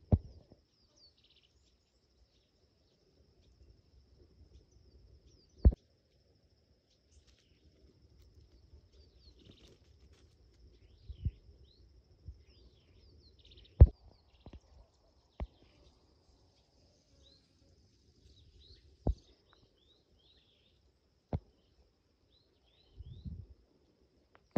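Outdoor ambience: small birds chirping faintly throughout over a steady thin high tone. About seven sharp knocks are spread through it, the loudest about two-thirds of the way in, with a short cluster of low thuds near the end.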